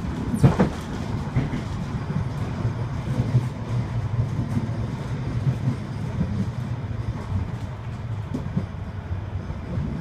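Manchester Metrolink M5000 tram running along the track, heard from inside the passenger saloon: a steady low rumble of wheels and running gear. There is a sharp clatter about half a second in and a lighter knock about eight seconds in.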